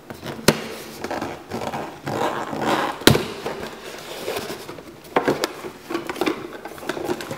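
Cardboard toy box being opened by hand: the card rubs and scrapes, with sharp snaps as the flaps are pulled, the loudest about three seconds in.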